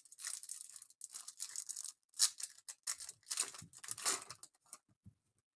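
Shiny foil wrapper of a Topps Chrome Stadium Club trading card pack crinkling and tearing as it is ripped open by hand, in short irregular rustles that die away near the end.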